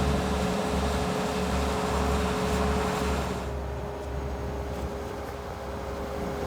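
Steady low machine rumble with a constant hum. A rushing noise over it drops away about three and a half seconds in.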